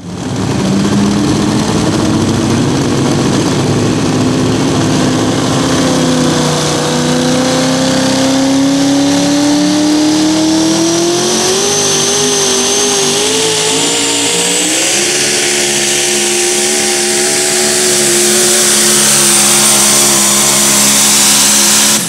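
Twin-turbocharged 2wd pulling truck's engine running loud at full power while it drags the pulling sled. Its pitch climbs steadily from about six seconds in and wobbles for a couple of seconds around twelve seconds in, then holds steady, with a thin high whine climbing above it. The sound cuts off suddenly at the end.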